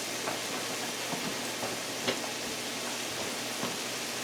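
Bacon sizzling in hot grease in a cast iron frying pan, a steady hiss with a few small sharp pops.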